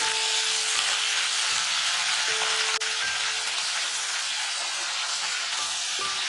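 Bhringraj leaves, shallots and garlic sizzling as they fry in oil, stirred with a wooden spatula: a steady frying hiss.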